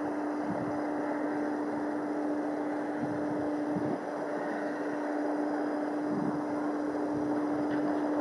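Distant Cessna 172M Skyhawk's four-cylinder Lycoming engine and propeller at take-off power, a steady drone as the plane rolls down the runway and lifts off on a touch-and-go, with wind noise on the microphone.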